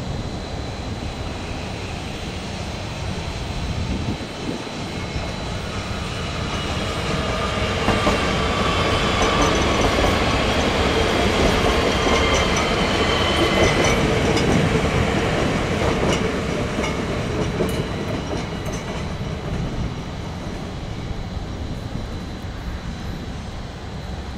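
Siemens Desiro ML electric multiple unit (ÖBB Cityjet) rolling past on the rails, the running noise swelling to its loudest about a third of the way in with a whine over it, then fading as the train moves away.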